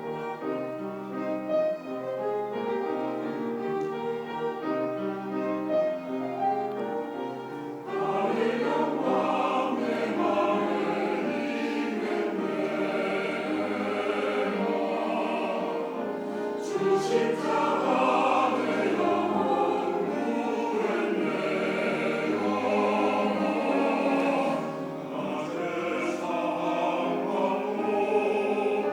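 Instrumental introduction of steady chords, then a mixed choir enters about eight seconds in, singing a hymn anthem in parts over the accompaniment.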